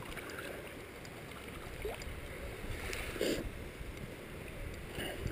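Creek water running steadily over the riverbed, with a few faint clicks and a short louder sound about three seconds in.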